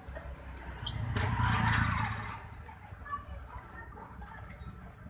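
Lovebirds giving short, shrill chirps: a quick cluster in the first second, two more past the middle and one near the end. A low rushing noise swells and fades between about one and two and a half seconds in.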